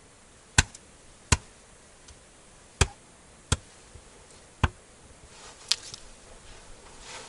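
Six sharp chopping blows at uneven intervals, an axe cutting off the loose ends of a freshly tied twig broom.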